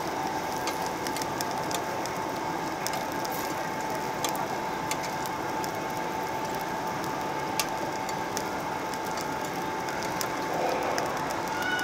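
Meat sizzling on a slotted tabletop Korean barbecue grill plate, a steady hiss broken by many small crackling pops of spitting fat. A faint steady tone runs underneath.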